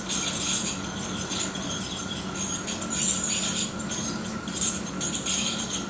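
Ultrasonic dental scaler working on a dog's teeth, giving short bursts of high hiss that start and stop several times, over a steady low hum from equipment.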